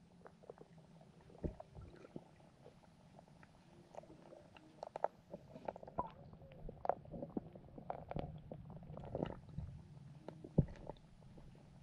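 Underwater sound among carp and goldfish: scattered clicks, pops and soft knocks over a low steady hum, busier in the second half, with the sharpest knock about ten and a half seconds in.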